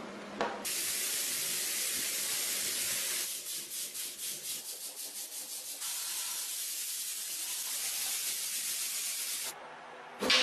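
A pressurised air or spray jet hissing steadily for about nine seconds, then cutting off suddenly. For a couple of seconds in the middle it flutters in quick pulses.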